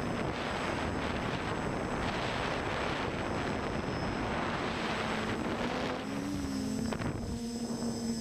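Quadcopter's T-Motor brushless motors and propellers running in flight under a loud rush of wind. About five seconds in, a steady motor hum comes through the rush, briefly bending up and down in pitch as the throttle changes.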